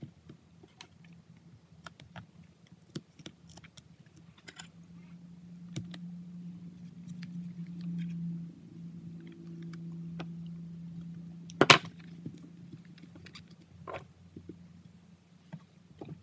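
Binder clips and spring clamps being handled and clipped onto a leather-wrapped armrest lid: scattered light clicks and rustles, with one sharp, much louder snap about two-thirds of the way through. A low steady hum runs under the middle part.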